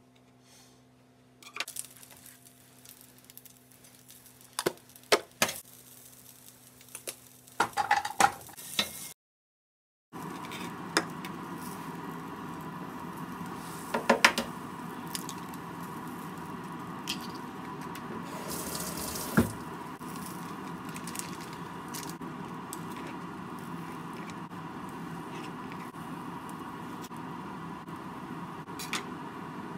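Knife clicks and taps on a plastic cutting board as sausages are sliced. After a brief gap, a steady hiss and hum of sausages heating in a tamagoyaki pan on the stove, broken by a few clunks of kitchenware and knife taps as bacon is chopped near the end.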